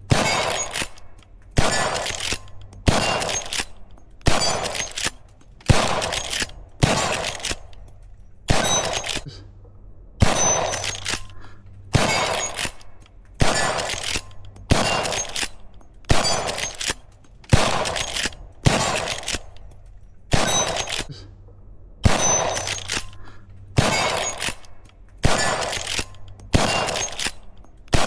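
Henry lever-action rifle chambered in .357 Magnum firing a long string of shots, about one every second and a half, each shot ringing out briefly after it.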